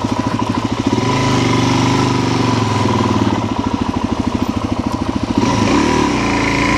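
Suzuki DR-Z400's single-cylinder four-stroke engine running at low revs with even firing pulses, then picking up on the throttle about a second in, its pitch rising and falling as the rider works the throttle.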